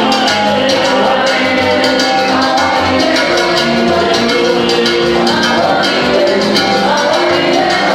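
Live salsa band playing, with a busy, quick percussion beat over bass and pitched instruments.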